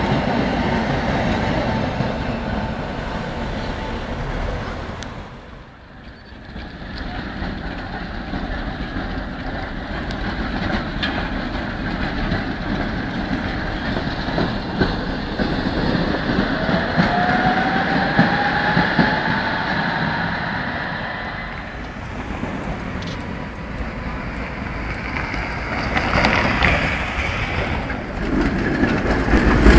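Tatra trams running past on street track, wheels rumbling and clattering over the rails, with a rising whine from a tram's electric motors partway through.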